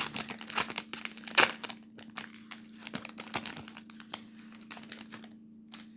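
Foil wrapper of a baseball card pack crinkling and tearing as it is opened, a dense run of crackles that thins out near the end.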